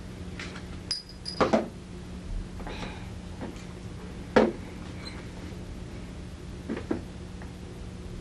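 A few short knocks and clinks of a drinking cup being lifted and set back down on a plastic tabletop. The loudest knocks come about one and a half and four and a half seconds in.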